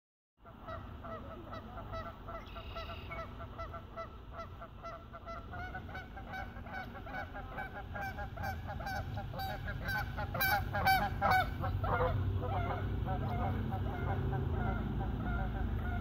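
Canada geese honking in rapid, repeated calls that grow louder until about eleven seconds in, then stop about a second later, over a steady low rumble.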